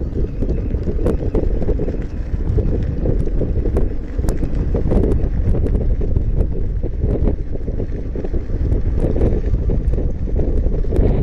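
Wind rumbling on the microphone of a rider moving on an electric unicycle, steady throughout, with scattered small clicks and knocks.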